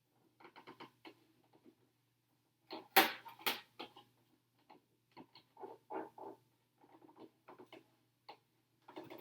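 Small handling noises from applying a sticker to an RC truck's plastic body: scattered crinkles, scratches and taps of fingers, sticker backing and body shell. Two sharp, louder crackles come about three seconds in. A faint steady low hum lies underneath.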